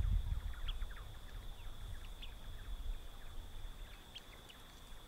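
Faint bird chirps: short high notes about every second and a half, with a flurry of softer chirps early on. Under them run a steady thin high whine and a low wind rumble that fades after the first second or two.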